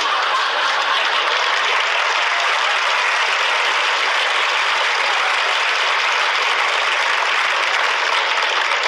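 Sitcom studio audience applauding steadily after a punchline, an even wash of clapping that keeps the same level throughout.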